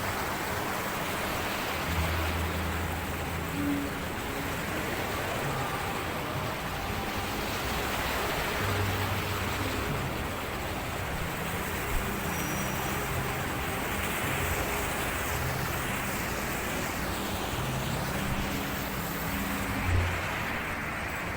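Steady rush of strong sea wind and surf, with the wind buffeting the microphone.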